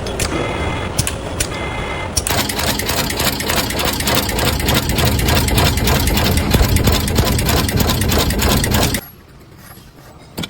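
Production machinery running with a fast, even mechanical clatter. It cuts off suddenly about nine seconds in, leaving a much quieter background. In the first two seconds there are slower clicks, about two a second, with a ringing tone.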